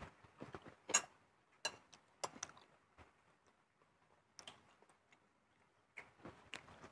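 Scattered small clicks and clinks of a shared meal eaten by hand from plates and bowls on a floor, about nine at irregular intervals, with a quiet gap midway.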